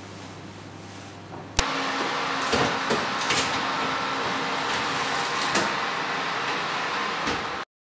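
A metal baking tray of bread rolls is slid onto the rack of a hot oven, with a sharp click and then a few knocks and scrapes of metal over a steady rushing noise. Before that comes a quiet steady hum.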